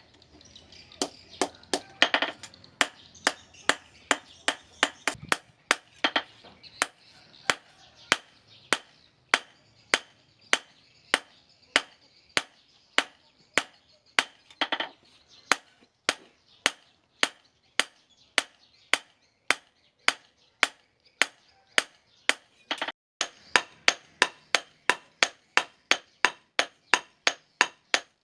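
Hammer blows on steel, about two a second, quickening near the end, each strike ringing briefly: a blade being hammered out on an anvil while forging a chef knife.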